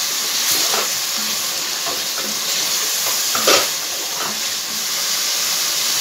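Chicken pieces sizzling and frying in oil in a metal karahi, stirred with a wooden spoon that scrapes and knocks against the pan now and then; the loudest knock comes about three and a half seconds in.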